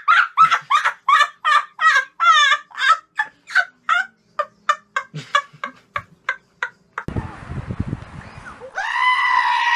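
Comic sound effects edited in: a quick run of about twenty short, high, pitched calls, about three a second, each sliding down. It cuts off sharply, and after a rougher noisy stretch comes one long, held call near the end.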